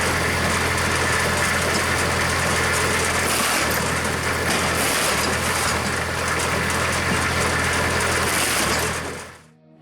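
An engine running steadily at constant speed, with a broad mechanical hiss over it. It fades out near the end.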